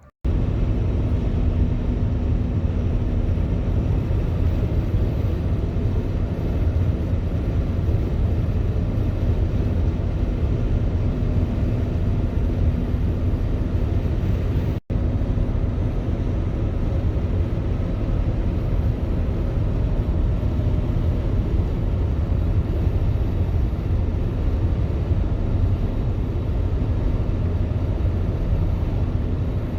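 Steady low rumble of a vehicle on the move, road and engine noise with one faint steady tone in it, broken off for an instant about halfway through.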